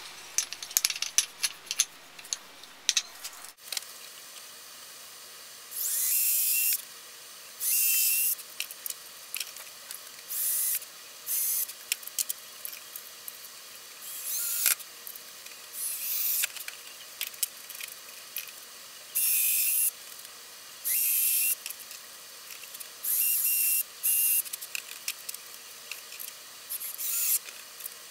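Cordless drill run in about ten short bursts, each under a second, on a white-painted wooden letter box. A few seconds of clicks and knocks from handling wooden frames come first.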